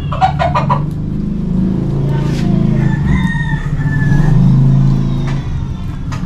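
Rooster crowing: a few short calls just after the start, then a longer held crow about three seconds in. Underneath is a low engine drone that swells around four to five seconds in.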